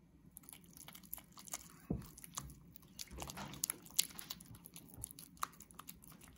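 Silicone spatula stirring a sticky cream cheese filling in a glass bowl as lemon juice and zest are worked in. It makes irregular wet smacking and clicking strokes that begin about half a second in.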